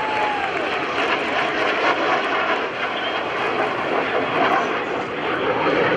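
Jet noise of an F-35C Lightning II and its F/A-18D Hornet chase plane flying past together at reduced power, not in afterburner: a loud, steady rush.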